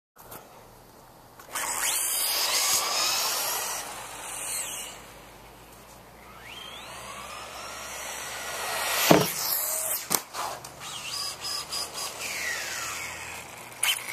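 Losi XXX-SCT radio-controlled short course truck's electric motor whining, its pitch rising and falling as it speeds up and slows, with tyre noise on pavement. A sharp thump about nine seconds in, the loudest sound, as the truck lands off the jump, is followed by several smaller knocks.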